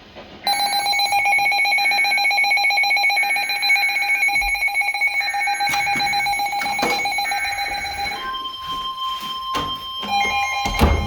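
Emergency Alert System attention signal: a loud, steady two-tone alarm starting about half a second in. About eight seconds in it gives way to a single higher steady alert tone, and the lower tone comes back in under it near the end, with a few sharp clicks along the way.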